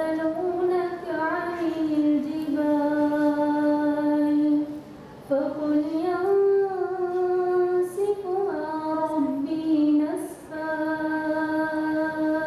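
A woman's solo voice reciting the Quran in the melodic tajweed style over a microphone. She holds long notes with slow turns and ornaments in pitch, and pauses for breath about five seconds in and again about ten seconds in.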